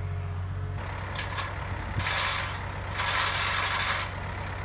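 Diesel engine of heavy equipment running at a steady idle; about a second in the engine note changes to a rougher rumble. Two loud bursts of hiss come about two and three seconds in, the second lasting about a second.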